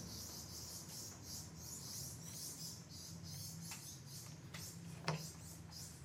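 Mechanical pencil lead scratching on wood in quick repeated strokes, several a second, as dovetail lines are drawn along a dovetail marking block. A single light knock about five seconds in.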